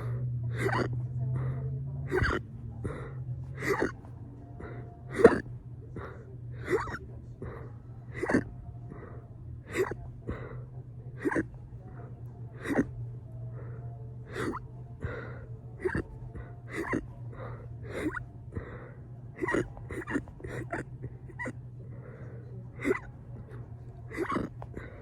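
Fast, regular hiccups, a short sharp gulp about every three-quarters of a second, repeating without a break. The hiccups were brought on by burping.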